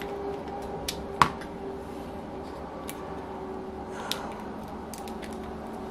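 A few small sharp clicks and ticks of a screwdriver and fingers working the carburettor mounting screws out of a model glow engine, the loudest click about a second in, over a faint steady hum.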